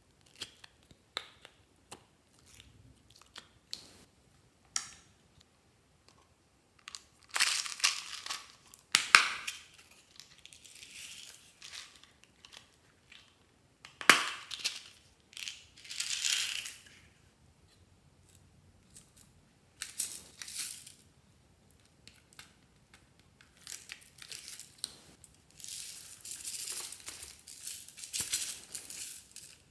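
Hands handling small plastic slime containers and packets: scattered clicks and taps, then several louder stretches of crinkling and crackling plastic as slime is squeezed out. Near the end, small beads and sprinkles are scattered into the trays.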